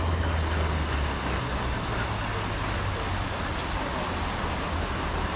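Steady low drone of a passing boat's outboard motor running at speed, over a wash of wind and water noise.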